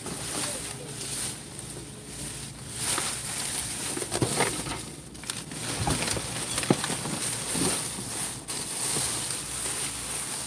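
Plastic bags crinkling and rustling as hands dig through bagged merchandise and cardboard boxes, with an irregular run of small crackles.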